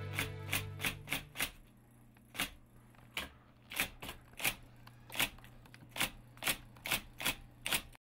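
Electric typewriter keys striking in sharp, irregular clacks, roughly two or three a second, as someone types. Soft music fades out under the first strokes, and the typing cuts off abruptly near the end.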